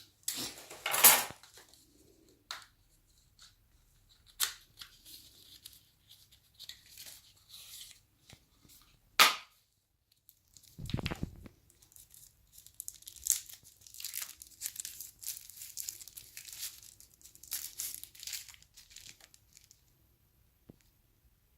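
Packaging being torn open and crinkled by hand: a loud rip near the start, a couple of sharp clicks, a dull thump about halfway, then a long stretch of rustling and crinkling.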